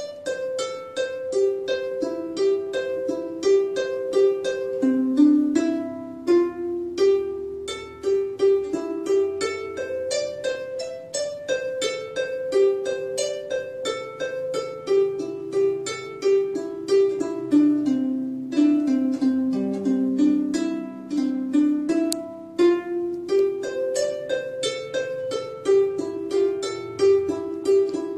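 Background music: a quick melody of plucked string notes played over a lower bass line.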